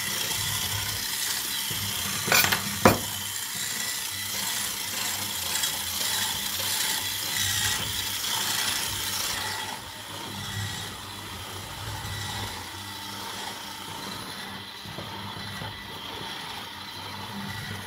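Electric hand mixer with dough hooks running steadily as it kneads crumbly butter-cookie dough in a bowl, a little quieter from about ten seconds in. Two sharp knocks come about two and a half and three seconds in.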